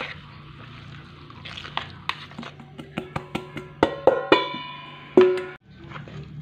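Utensils knocking and scraping against a mixing bowl while egg batter is stirred, in a quick, irregular run of clicks. Several of the knocks ring with a clear pitch as flour is tipped in, the loudest a little after five seconds in.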